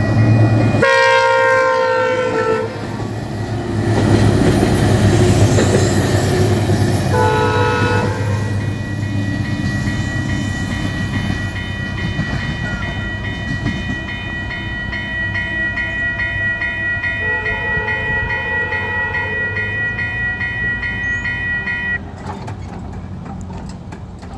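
Diesel locomotive air horn sounding three blasts as a train passes: a loud blast of about two seconds, a shorter one a few seconds later, and a fainter, longer one past the middle. Under the horn run the train's rumble and a steady high ringing that stops shortly before the end.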